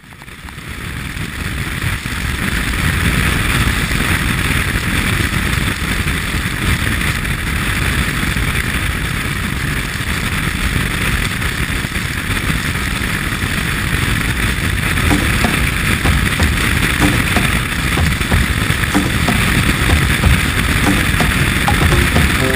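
Wind buffeting a camera mounted on the outside of a moving car, over the hiss of tyres on a wet road. The sound fades in over the first two seconds, then stays steady.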